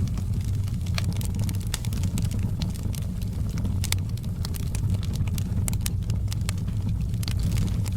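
Wood fire burning, with frequent sharp crackles and pops over a steady low rumble.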